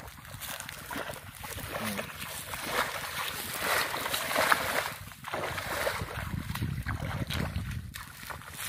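Shallow muddy water sloshing and splashing as a man wades and gathers a wet cast net, with small scattered splashes and clicks. Wind buffets the microphone, heavier near the end.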